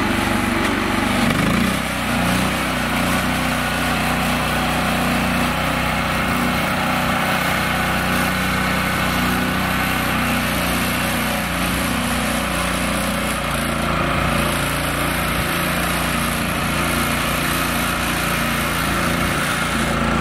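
Small engine of a mini tractor running steadily under load as it tries to drag itself and a trailer out of mud.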